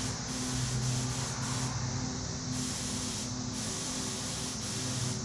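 Spray gun hissing as Cerakote coating is sprayed on, the hiss dropping out briefly several times between passes, over a steady low hum.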